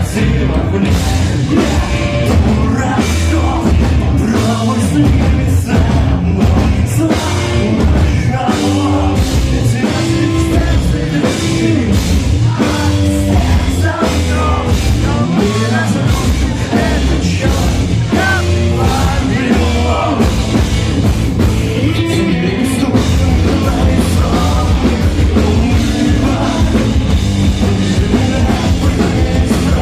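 Live rock band playing loudly, with drums, distorted electric guitars and bass, and singing over the band.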